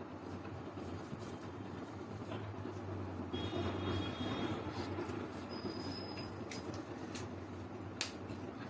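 Felt-tip marker rubbing back and forth on paper in colouring strokes, over a steady low hum. There is a sharp click near the end.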